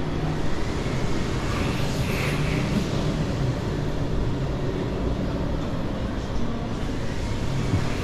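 Steady background rumble with a low hum, the ambient noise of a busy indoor arcade; no single sound stands out.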